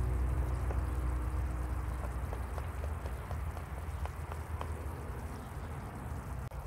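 Food cooking in a Dutch oven: a steady hiss with scattered small pops.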